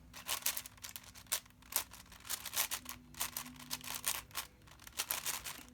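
Plastic 7x7 speed cube being turned by hand: rapid, irregular clicking and clacking of the layers, several clicks a second.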